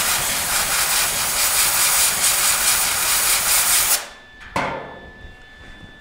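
A compressed-air blow gun blasts steadily on a fresh weld seam in sheet steel, cooling it so the panel doesn't warp from the heat. It cuts off abruptly about four seconds in, and a shorter blast follows about half a second later.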